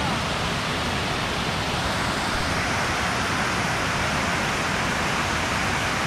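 Kuang Si waterfall's tiered cascades pouring into a pool: a steady, even rush of falling water.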